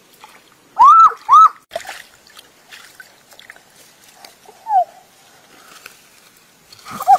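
An animal gives two loud, short, high yelps in quick succession about a second in, each rising then falling in pitch. A fainter falling call follows near the middle and another near the end, over light water sloshing.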